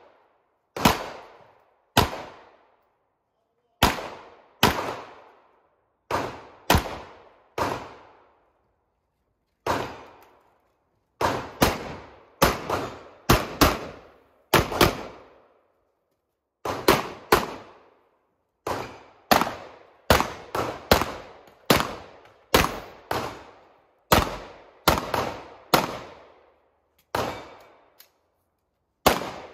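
Glock 17 9 mm pistol firing in quick pairs and short strings, each shot with a short echoing tail, with pauses of a second or two between groups as the shooter moves between positions on an IPSC course of fire.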